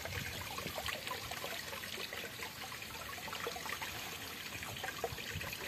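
Water trickling steadily, with many small irregular splashes.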